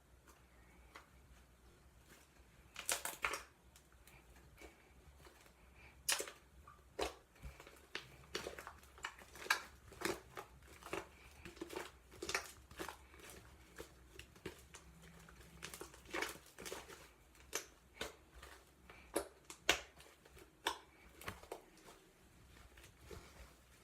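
Slime with clay worked into it being kneaded and squished by hand, making irregular sticky clicks and small pops. The clicks start about three seconds in and keep coming every half second or so.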